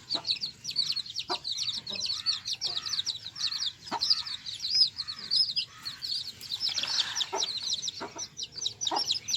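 Young desi chicks peeping, many short high-pitched cheeps overlapping in a continuous run, with a few soft knocks now and then.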